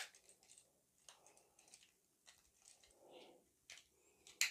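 Plastic parts of a Transformers action figure being handled and snapped into place: faint scattered clicks and rubbing, with one sharp click right away and a louder click near the end.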